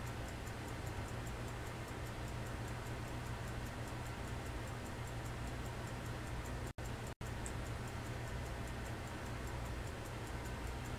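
Faint, rapid, even ticking of a mechanical pocket watch over a steady low hum. The sound cuts out twice, very briefly, about seven seconds in.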